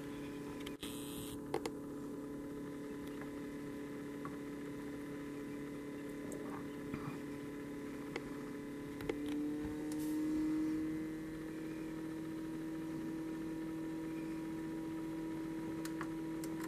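Steady electrical hum of an egg incubator, stepping slightly up in pitch about nine seconds in and briefly swelling louder, with a few faint ticks.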